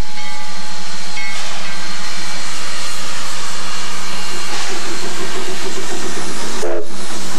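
Shay geared steam locomotive No. 14 hissing steam loudly and steadily, with a brief break in the hiss near the end.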